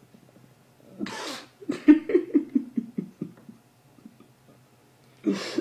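A man laughing: a sharp breath in, then a run of about eight short laugh pulses falling in pitch, with another audible breath near the end.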